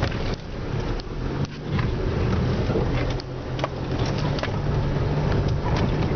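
Four-wheel drive's engine pulling steadily up a rough dirt hill, heard from inside the cabin, with scattered knocks and rattles as the vehicle jolts over ruts and rocks.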